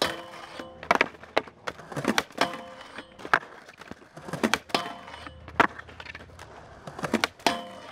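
Skateboard on a metal rail and concrete: wheels rolling, with repeated sharp clacks of the trucks and board hitting the rail and ground during attempts at a back 5-0 shove, and the board clattering away after a bail. Several of the hits leave a brief ringing tone.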